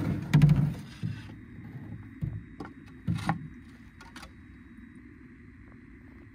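A canoe being set off: a loud thump against the hull about half a second in, then a few light knocks about a second apart.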